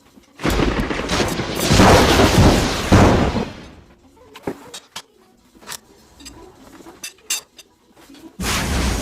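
Tyre-changing work on a mousse-filled front tyre: loud scraping and rubbing of rubber and tools for about three seconds, then a few sharp clicks and knocks, then loud noise again near the end.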